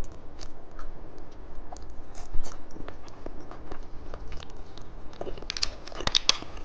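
Plastic candy packaging being handled and opened: scattered small clicks, taps and crinkles, denser and louder near the end.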